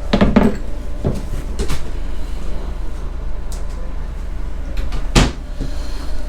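Camper kitchen cabinet doors being opened and shut: a cluster of knocks at the start, two more a second or so later, and a louder knock about five seconds in, over a steady low background hum.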